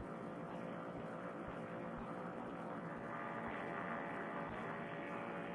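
Paramotor trike engine running steadily in flight, a muffled drone heard through a Bluetooth helmet-headset microphone.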